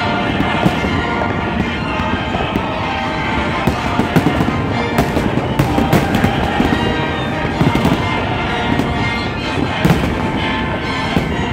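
Fireworks shells bursting in rapid, near-continuous succession, loud and dense, with music playing underneath.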